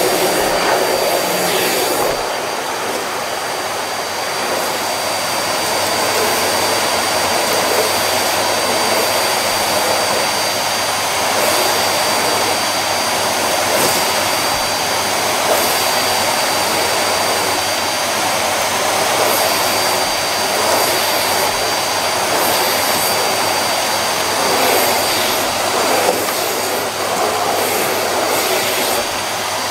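Bagged cylinder vacuum cleaner running steadily, with a high motor whine over the rush of suction, as the floor head is pushed back and forth over carpet.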